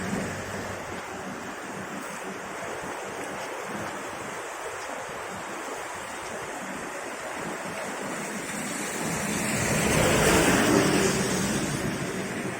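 Steady rushing of flowing floodwater, swelling louder about ten seconds in.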